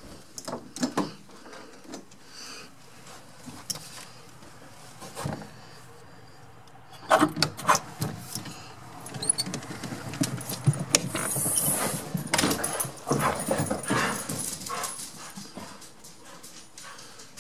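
Two dogs being let in through a door and moving about excitedly. Scattered light clicks come first, then from about seven seconds in a dense run of knocks, clatter and dog noises lasts several seconds before easing off.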